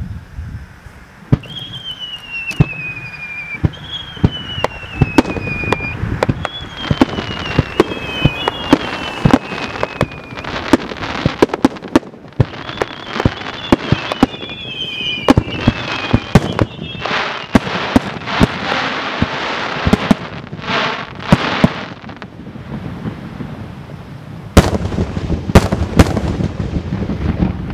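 Aerial fireworks shells launching and bursting in quick succession, with several whistles that fall in pitch over about a second each, a stretch of dense crackling past the middle, and a cluster of loud booms near the end.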